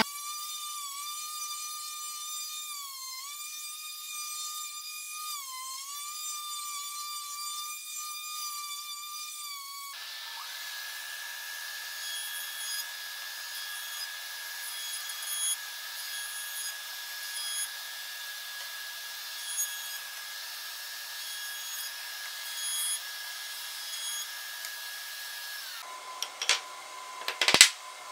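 A Bosch random orbital sander runs on a wooden workbench top with a steady whine that dips briefly in pitch twice. About ten seconds in, it gives way to a jointer (surface planer) running steadily with a held tone, which winds down a little before the end. Then a small hammer strikes a few sharp taps, driving wooden dowels into holes in timber legs.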